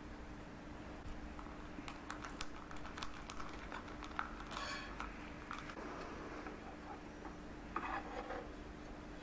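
Light clinks and scrapes of a thin paintbrush tapping and stirring in a small metal jar lid, then a short hiss from a trigger spray bottle squirting into the lid, and near the end a brief scrape as the lid is handled and stirred again.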